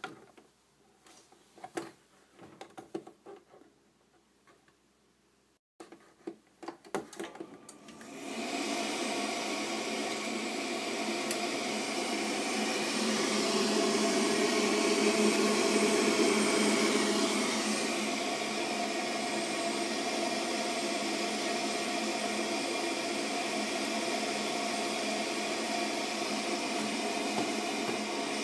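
Clicks and knocks of handling for about eight seconds, then a steady whirring hum starts and runs on, a little louder for a few seconds midway: a Heatline gas boiler's fan running.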